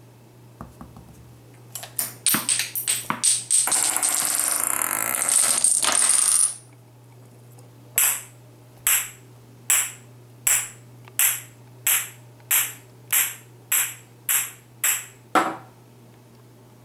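Parts of a homemade Rube Goldberg chain reaction clicking and clattering on a kitchen counter. A quick run of sharp taps leads into about three seconds of continuous rattling with a high ring, like something rolling or spinning on the stone. After a pause come about a dozen sharp taps at an even pace, the last one longer.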